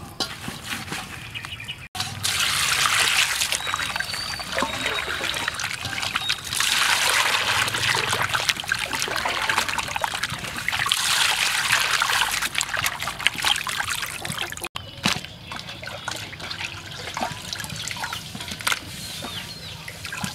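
Water sloshing and splashing in a metal basin as hands rub and turn skinned frogs in it, swelling in three louder spells of a couple of seconds each.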